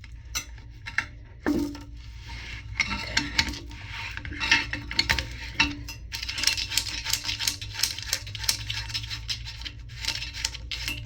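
Plastic toilet fill-valve parts being twisted and worked by hand: a stuck plastic nut being forced loose, with irregular clicks, scrapes and rattles that grow busier in the second half, over a low steady hum.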